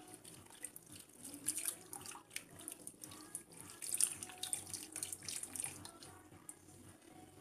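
Thin sour-cream sauce, thinned with water, being spooned and then poured from a small saucepan over stuffed vegetables in a pot: faint, intermittent trickling and splashing of liquid.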